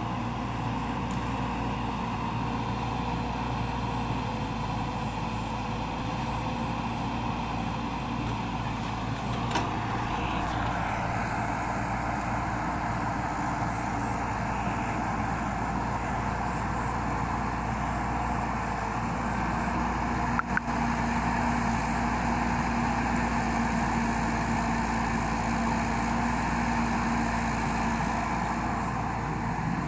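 Excavator's diesel engine running steadily while digging, with a knock about ten seconds in and a sharp clank about twenty seconds in, after which a steady hum joins it.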